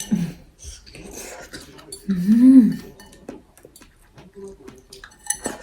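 Scattered light clinks and clicks of cutlery against a plate while fruit is eaten, with one short hummed vocal sound, rising then falling in pitch, about two seconds in.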